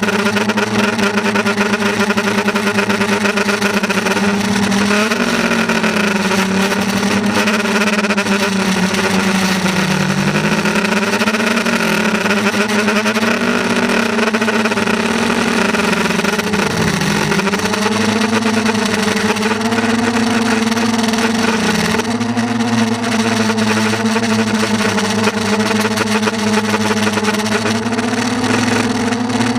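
Steady motor-and-propeller hum from a radio-controlled aircraft carrying a GoPro: one low tone with overtones whose pitch dips briefly several times, about ten, seventeen and twenty-two seconds in, as the motor speed changes.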